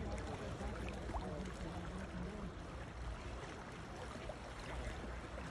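Fast-flowing river water rushing steadily, with a deep low rumble under the hiss.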